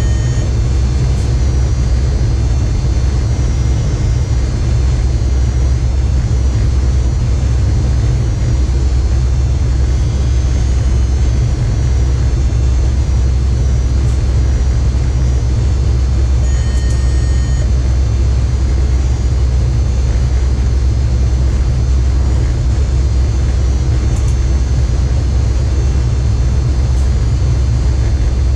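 Electric locomotive cab at speed: a steady low rumble of the running train. About seventeen seconds in, a short beep of about a second sounds in the cab.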